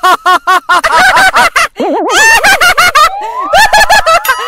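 A high-pitched, sped-up cartoon voice giggling in quick repeated bursts, then comedy sound effects: a wobbling tone about two seconds in, followed by rising and arching glides.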